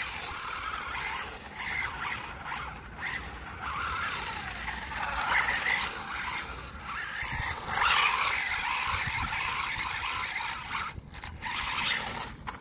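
WLtoys A959-B electric RC car driving, its motor and drivetrain running with tyre scrub on the surface. The loudness rises and falls as it goes.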